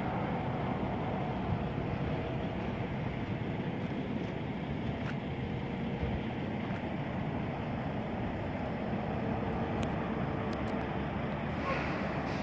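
Steady outdoor background noise, an even low rumble with no distinct source, and a few faint ticks in the second half.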